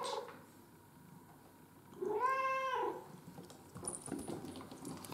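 Domestic cat meowing: a short questioning "mm?" at the start, then one longer, louder meow about two seconds in that rises and falls in pitch.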